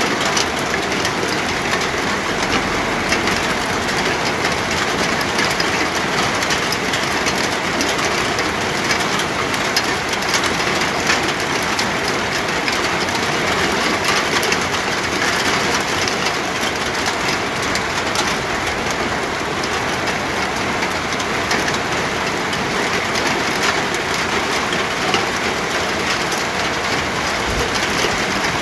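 Steady rain falling: an even, dense patter of countless drops that holds at the same strength throughout.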